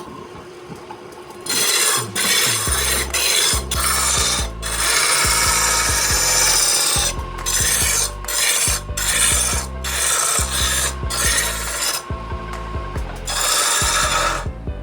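A tool scraping or sanding a wooden workpiece spinning on a lathe, in stop-start passes of one to three seconds with short breaks between them.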